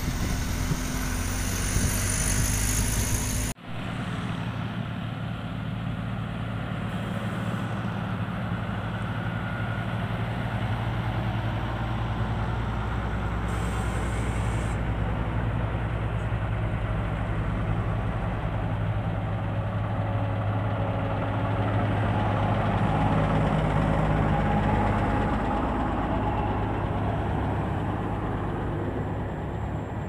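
Diesel engine of a pneumatic-tyred road roller running steadily as it compacts fresh asphalt, a continuous low hum, with car traffic passing. In the first few seconds an asphalt paver's engine is heard instead, broken off by an abrupt cut.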